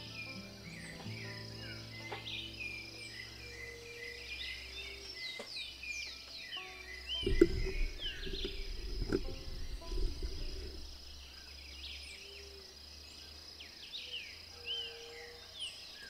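Birds chirping over a steady high insect drone, with a few seconds of scraping and knocking noises about seven to ten seconds in.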